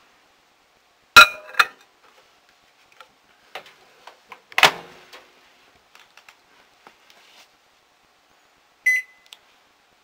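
Knocks and clatter as a dish is set inside a microwave and the door is shut, with two loud knocks about a second in and midway. Near the end, a single short high beep from the Panasonic NE-E22A2 microwave's buzzer as its cancel button is held down, the confirming beep in the sequence that switches the buzzer off.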